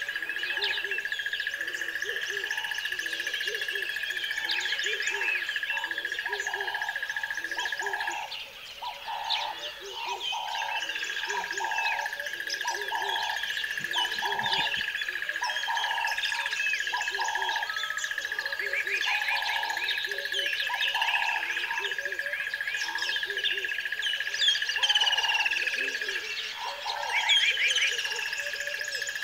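A dense chorus of birds chirping and trilling, over a steady high whine that drops out briefly twice, with a lower call repeating about once a second.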